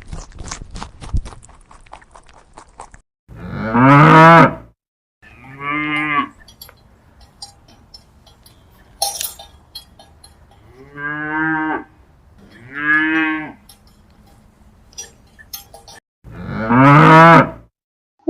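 A cow mooing five times, each low call lasting about a second. Between the calls there are light clinks and knocks, and a run of clicks comes before the first moo.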